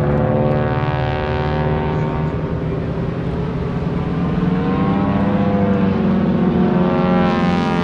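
Formation of T-6 Texan propeller trainers flying past low, the drone of their radial engines and propellers running steadily. The pitch sags about midway and rises again near the end as the aircraft pass.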